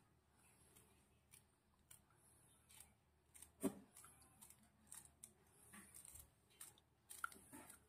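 Small kitchen knife slicing finely through a rolled colocasia (taro) leaf held in the hand: faint crisp cuts at irregular intervals, about two a second, with one louder click about three and a half seconds in.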